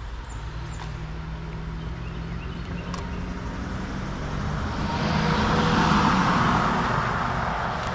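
A motor vehicle passing: a steady engine hum with road noise that builds to a peak about six seconds in, then eases off.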